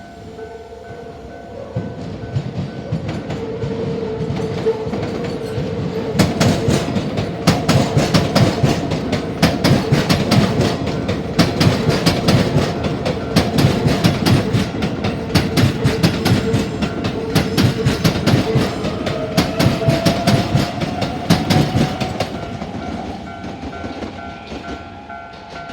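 Keisei Skyliner train passing over a level crossing, its wheels clattering rapidly over the rail joints, building from about two seconds in, loudest in the middle and fading near the end, with a steady whine under it. The crossing's warning bell rings steadily at the start and again as the train fades.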